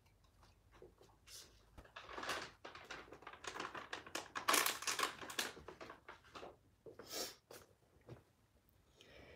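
Labrador puppy nosing and pawing through the bedding after something she dropped: a run of irregular soft clicks and rustles, busiest in the middle, with one short rustle near the end.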